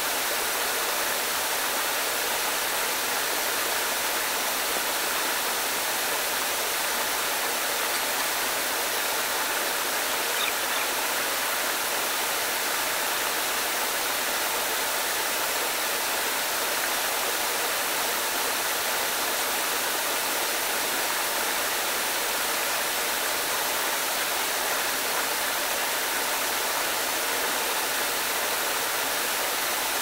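A waterfall pouring over rock into a pool: a steady, unbroken rush of falling water.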